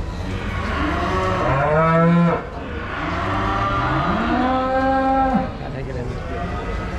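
Aberdeen Angus cattle mooing twice: a call rising in pitch about two seconds in, then a longer call held steady around five seconds in, over a steady low rumble.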